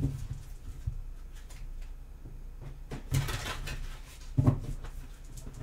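A deck of tarot cards being shuffled by hand, with a brief rustling riffle about three seconds in and a sharp tap, like the deck knocked on the table, about a second and a half later.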